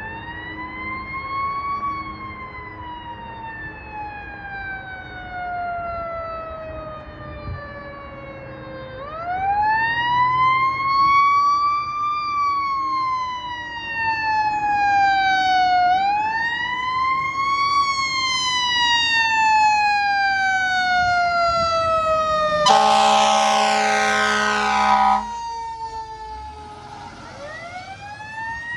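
Fire engine running code 3 with its siren wailing: each wail winds up quickly, then falls away slowly over several seconds, and this repeats several times. About two-thirds of the way through, a loud air-horn blast lasts about two and a half seconds, and the siren winds up again near the end.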